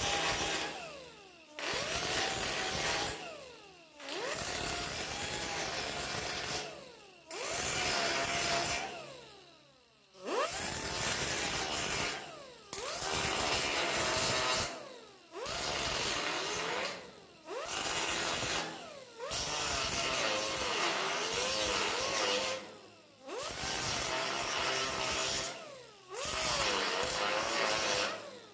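Small right-angle air grinder with an abrasive disc grinding the tops off steel plug welds on a lapped quarter-panel seam, run in about a dozen short bursts. Each burst starts suddenly with a wavering whine under load, and the whine falls away each time the trigger is released and the disc spins down.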